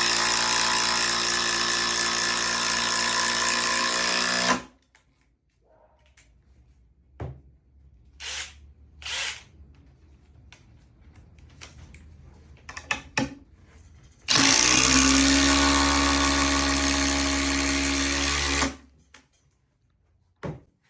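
A DeWalt cordless impact driver runs steadily twice, each time for about four seconds. The first run cuts off about four and a half seconds in, and the second starts about fourteen seconds in. Between the runs come scattered clicks and light handling knocks.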